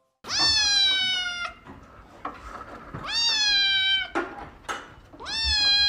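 Domestic cat meowing: three long, drawn-out meows, each rising quickly then sliding slowly down in pitch, with short pauses between them.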